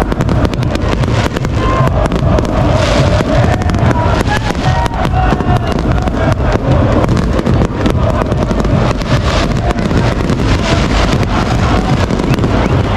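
Fireworks crackling and banging in a rapid, dense stream over a large crowd of football fans singing together.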